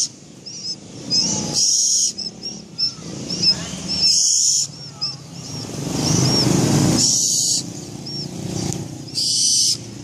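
Young barn owl hissing in four short, harsh bursts a couple of seconds apart, over faint high chirps.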